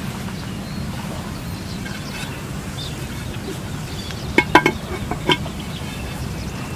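Cooking utensils clinking against cookware: a quick run of three or four ringing clinks about four and a half seconds in and one more a moment later, over a steady low background noise.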